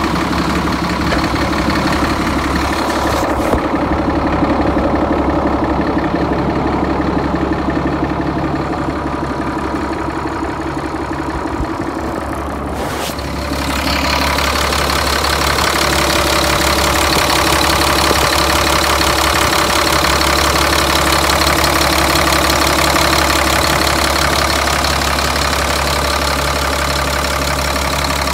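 Caterpillar 3126 inline-six diesel idling steadily. It sounds muffled for several seconds early on, then louder and clearer from about halfway through.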